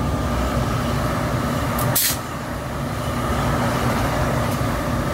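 NJ Transit electric locomotive running close by: a steady low rumble with a constant whine. About two seconds in comes a short, sharp hiss of air.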